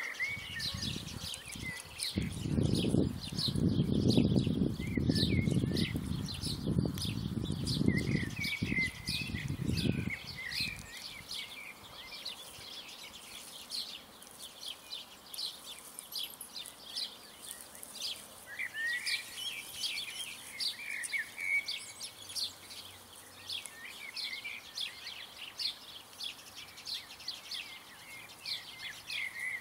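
Small birds chirping and singing, many short high notes. A loud low rumble runs under them for the first ten seconds or so, then stops.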